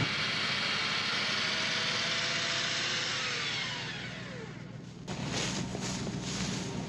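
Electric recovery winch motor running, its pitch falling slowly as it winds down and fades about four seconds in. Then wind and grass brush against the microphone as it is carried low along the tow strap.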